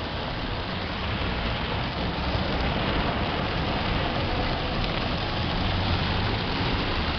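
Heavy rain falling steadily, with a vehicle's low rumble underneath.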